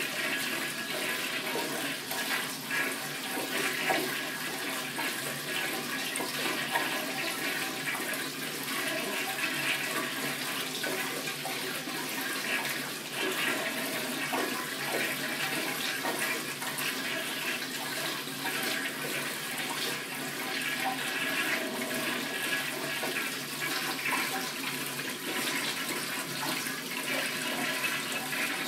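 Tankless flushometer toilet flushing continuously, a steady rush of water swirling down the bowl that never stops: the flush valve is not shutting off.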